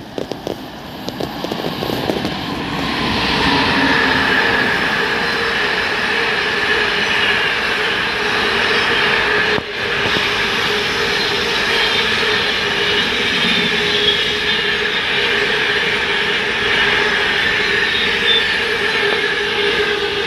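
Freight train hauled by a class 88 locomotive running through the station without stopping: the rumble of the wagons builds over the first few seconds, then holds loud and steady with a steady whining tone over it, easing a little near the end.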